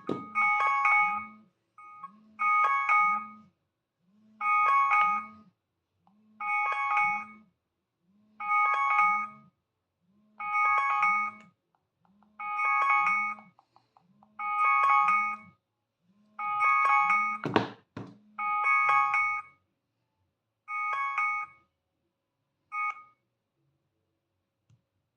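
Android phone alarm clock tone: a chiming alert sounding in bursts of about a second, roughly every two seconds, with a low buzz under each burst. A loud knock comes about seventeen seconds in, and the alarm stops a few seconds later.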